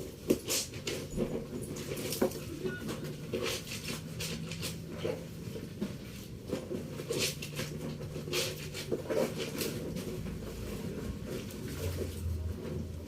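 Irregular light clicks, taps and rustling from household objects being handled, over a faint low hum.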